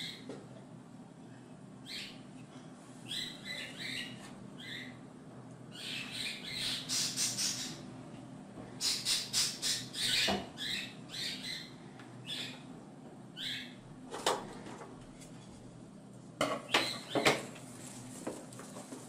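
Scissors snipping through wet balloon rubber and liquid squelching as a liquid-filled balloon is cut open and squeezed out over a plastic bowl, in short squeaky bursts. Near the end come a few sharp clicks.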